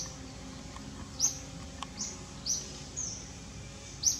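A bird calling with about six short, high chirps, each dropping quickly in pitch, spaced irregularly.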